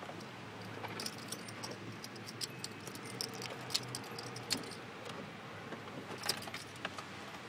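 Scattered raindrops tapping irregularly on the car's windshield and roof, heard from inside the cabin over a faint low hum.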